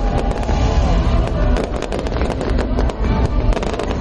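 Fireworks going off in quick succession: a dense run of sharp cracks and bangs over a continuous low rumble.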